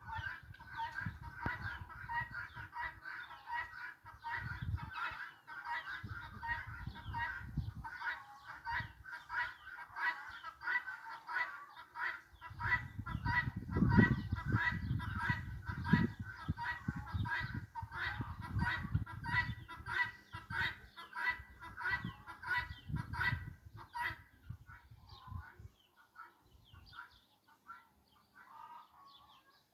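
Geese honking over and over in quick, repeated calls that die away near the end, with a low rumbling noise through the middle stretch.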